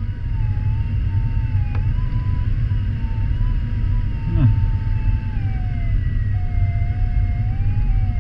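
Steady rush of airflow noise inside a glider cockpit, with a variometer's continuous audio tone over it. The tone wavers in pitch and drops lower a little past halfway as the climb rate changes. There is a faint click near the start and a short low sliding sound about halfway through.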